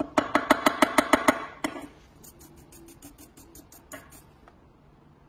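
A quick series of about nine ringing metal strikes, about six a second, on the stove's iron burner ring; then a run of faint, fast scratchy strokes of a brush over the metal.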